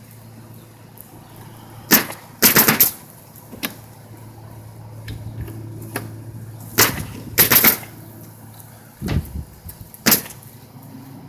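Nails being driven during skylight installation on a roof: a series of sharp bangs, some single and some in quick runs of two or three, over a steady low hum.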